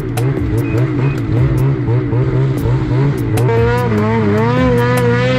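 Snowmobile engine running under changing throttle, its pitch wavering up and down, then climbing about three and a half seconds in and holding at a high, steady whine.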